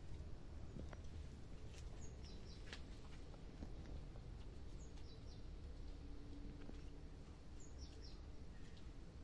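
Small birds chirping in the background over a low steady ambient rumble: short high, downward-sliding chirps in clusters of two or three, repeating every few seconds.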